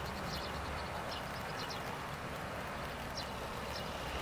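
Hyundai wheeled excavator's diesel engine running with a steady low drone as the machine works a rock pile, with short high clicks now and then.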